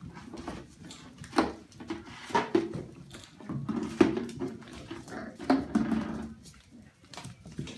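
A litter of 5½-week-old grand basset puppies play-fighting, with short yips and little growls among the scrabble of paws on the floor. The calls come in several short bursts, the loudest about four seconds in.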